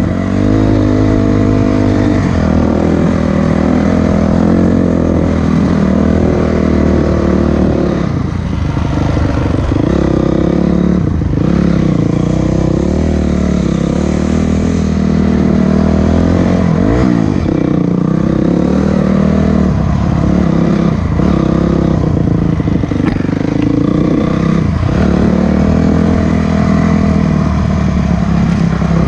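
Vehicle engine running under load while driving, its pitch rising and falling with the throttle every few seconds, with some rattling.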